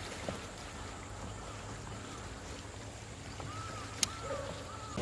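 Steady wind-and-water noise around a small inflatable fishing boat, with faint, repeated rising-and-falling high notes and one sharp click about four seconds in.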